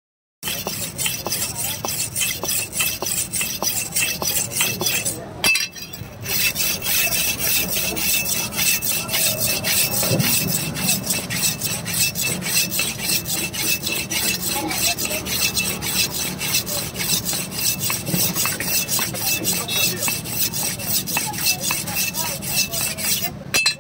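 A broad-bladed knife being sharpened on a flat stone block, with rapid back-and-forth rasping strokes, about three a second. The strokes break off briefly about five seconds in.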